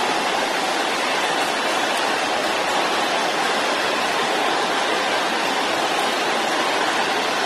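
A large congregation praying aloud all at once, the many voices blended into a steady, even rush of sound.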